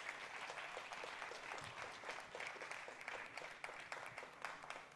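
Audience applauding: many hands clapping in a dense patter that thins a little toward the end.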